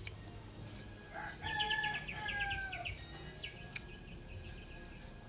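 A rooster crowing once. The crow lasts about two seconds and dips slightly in pitch at the end, and a sharp click follows about a second later.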